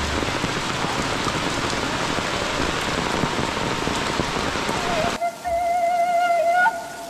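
Steady rain falling on the ground and surrounding surfaces. About five seconds in it cuts off abruptly, and music with a single held, slightly wavering melody note follows.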